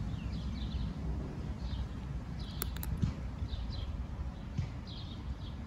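A cat chewing and crunching dry kibble, with a few sharp clicks near the middle. Small birds chirp repeatedly in the background over a low outdoor rumble.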